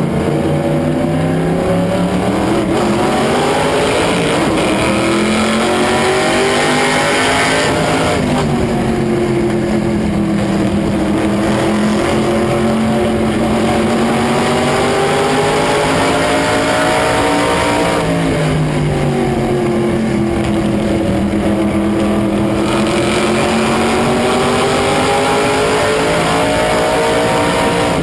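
Race car engine at full throttle on an oval, its pitch climbing along each straight and then dropping sharply as the driver lifts for the turn, about every ten seconds, then climbing again as he gets back on the power.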